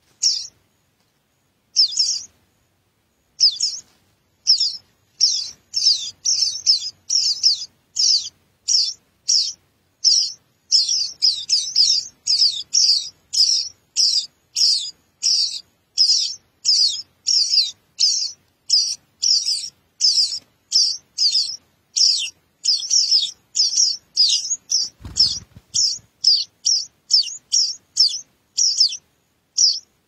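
Songbird nestlings begging with rapid, high, repeated chirps, about two to three a second, as a parent feeds them at the nest. A single low thump sounds about 25 seconds in.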